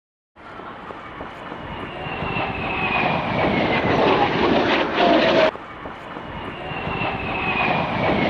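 Kawasaki T-4 jet trainer flying past, its twin turbofans growing steadily louder with a whine that falls in pitch. About halfway through the sound cuts off suddenly and the same pass starts over, quieter, and builds again.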